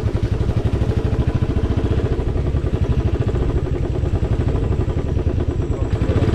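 Royal Enfield motorcycle engine running steadily under way, its exhaust beat pulsing evenly.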